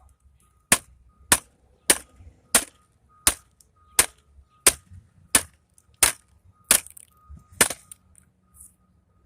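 Eleven hard, evenly spaced blows, about one every two-thirds of a second, struck on a vacuum cleaner's plastic casing to break it open.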